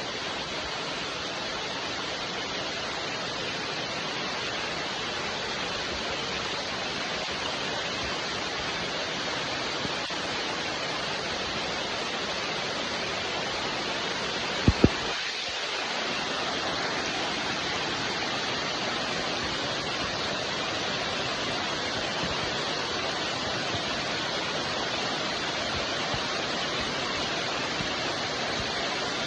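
Steady rain, an even hiss with no breaks. About halfway through come two sharp clicks close together.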